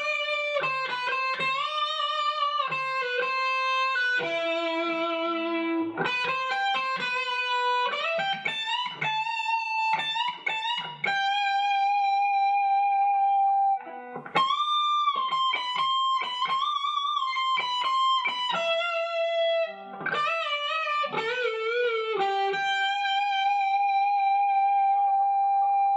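Shelter SG-style electric guitar played through a small amp: a melodic lead solo of single notes with string bends and wide vibrato, several notes held long, and it ends on a long sustained note.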